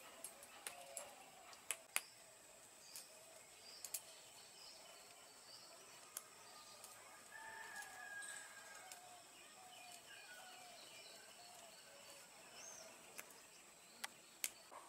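Faint calls of chickens and other birds, with a few light clicks scattered through.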